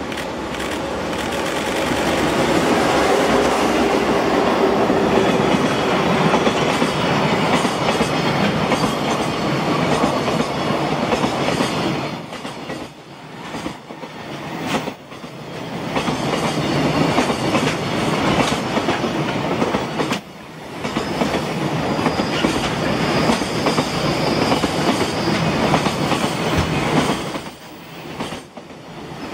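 Container freight train behind a JR Freight EF210 electric locomotive passing close by on a downhill grade: the locomotive goes by, then the wagons roll past with a steady rumble and the clickety-clack of wheels over rail joints. The loudness dips briefly a few times as the train goes by.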